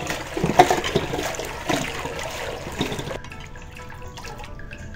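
Tap water running into a steel pot while hands rub and swish cut cassava pieces in it, washing them, with small splashes and knocks. About three seconds in, the water sound drops lower.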